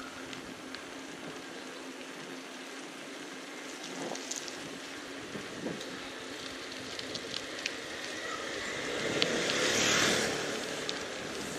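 Street ambience heard from a moving bicycle: a steady hiss of traffic and wind with scattered small clicks, then a vehicle passing close, building to its loudest near the end and fading away.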